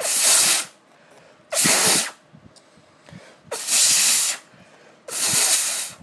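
Four short, loud blasts of air blown at the edge of an iPad, each a hiss lasting about half a second to a second, with short pauses between them: an attempt to clear the iPad's ports to get its sound working again.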